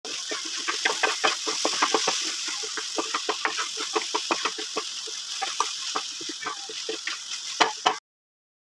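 Chopped onions, peppers and leeks sizzling in oil in a nonstick pan while a spatula stirs them, with many quick clicks and scrapes of the spatula against the pan. The sound cuts off suddenly near the end.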